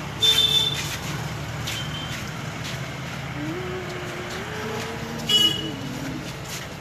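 Steady street noise, like traffic, with two short, loud, high-pitched toots about five seconds apart.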